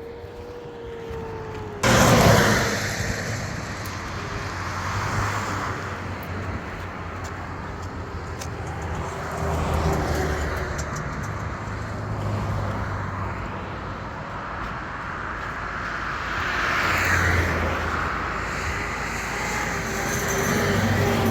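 A motor vehicle driving along, its engine running under steady road and wind noise. The noise jumps up suddenly about two seconds in, then swells and eases several times.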